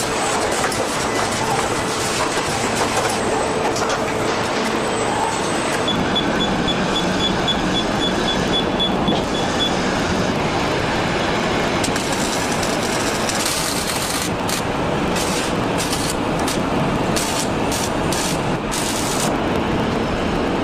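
Steady mechanical din of a car assembly line, with clattering machinery running throughout. A rapid high beeping sounds for a few seconds near the middle, and short hisses come and go in the second half.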